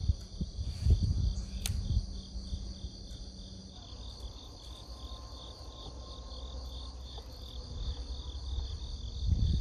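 Insects chirping in a steady pulsing chorus, several pulses a second. A few low thumps and rumbles on the microphone in the first two seconds and again near the end.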